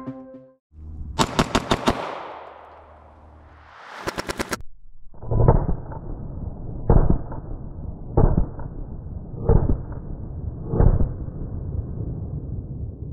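Two short stuttering runs of rapid clicks with a rising whoosh between them, then five 9mm pistol shots from a stock CZ Shadow 2 Compact, fired about 1.3 seconds apart.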